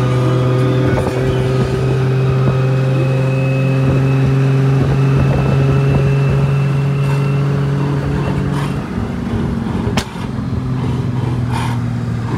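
Engine of a turbocharged TB48 straight-six Nissan GU Patrol running steadily under way, easing briefly about nine seconds in. A single sharp click is heard about ten seconds in.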